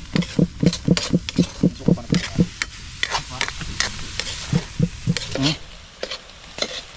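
Metal spatula scraping and stirring minced fish in a metal wok as it fries and sizzles. It goes in quick strokes, about four a second, for the first two and a half seconds, then slower, scattered scrapes.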